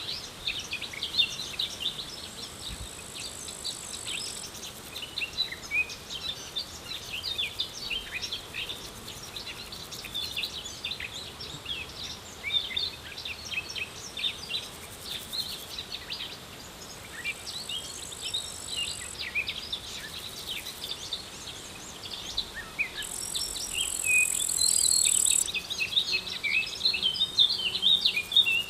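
Outdoor ambience of many small songbirds chirping and singing in quick, overlapping notes. A high, steady insect trill comes and goes several times, and the birds grow busier and louder near the end.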